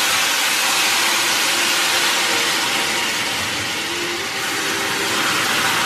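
Hot sugar syrup sizzling steadily as it is poured into a steel pan of ghee-toasted bread pieces.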